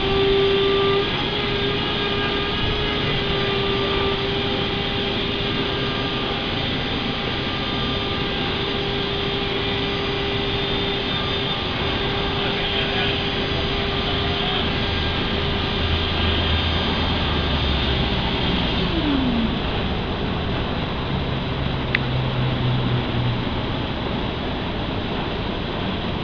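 A motor-driven machine whines steadily after spinning up. About 19 seconds in it winds down quickly, over a steady noisy background with a brief low hum and a single click near the end.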